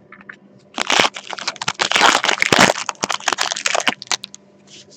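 A plastic card-pack wrapper being torn open and crumpled: a burst of dense crinkling and crackling from about a second in until about four seconds in.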